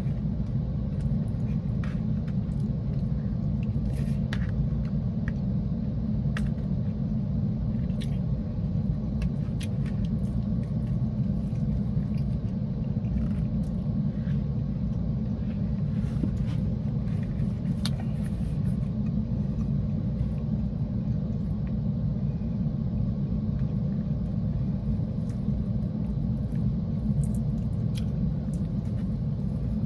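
Steady low rumble of a car's idling engine heard inside the cabin, with scattered light clicks and taps of utensils and food containers.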